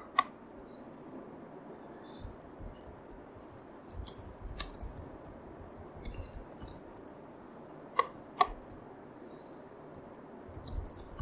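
Faint computer keyboard typing, heard as scattered light key ticks, with a few sharper mouse clicks: one just after the start and two close together about eight seconds in.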